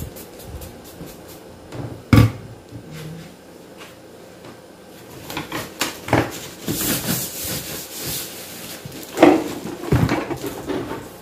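A large cardboard box being handled and turned over on a table: a thump about two seconds in, cardboard scraping and rustling from about five seconds in, then two more thumps near the end.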